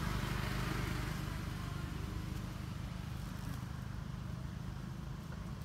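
A motor vehicle's engine running with a low, steady hum that slowly fades.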